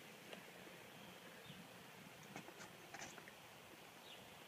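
Near silence, with a few faint, short bird chirps in the distance and a couple of light clicks about two to three seconds in.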